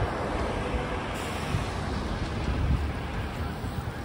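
Steady road-traffic noise with a city bus driving past close by, a low rumble under a general haze of traffic.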